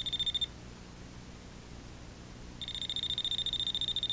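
Voltage-detector screwdriver's buzzer sounding a high-pitched, fast-pulsing electronic beep that stops about half a second in and starts again a little after halfway, as its red sensor light goes off and comes back on.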